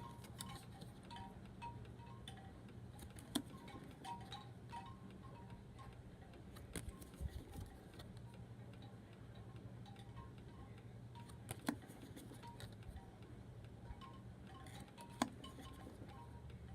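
Tarot cards being handled and set down, with a few sharp taps, over a steady low hum and faint, scattered chime-like pings.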